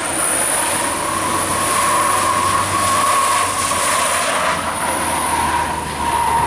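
A bus running on the uphill bend, with a steady high-pitched whine over the engine noise that dips briefly about five and six seconds in.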